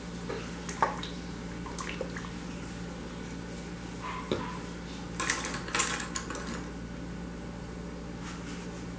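A few light knocks and brief scrapes as a plastic bottle of matte acrylic varnish is handled and set down on a granite countertop, over a faint steady hum.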